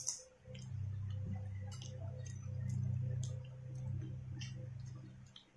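Scattered crisp clicks and crunches of tortilla chips, picked from a plate of nachos and bitten, over a steady low hum.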